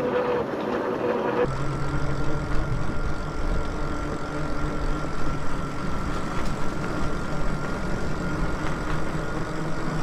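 E-bike riding along a paved trail, heard from a handlebar-mounted camera: a steady low rumble of wind and road noise with a thin, steady whine running through it. The sound changes abruptly about a second and a half in.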